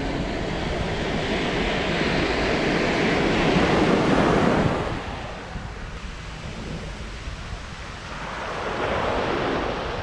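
Small surf washing up a sand beach: one wave's wash swells and falls away sharply about five seconds in, and the next surges in near the end. Wind rumbles on the microphone.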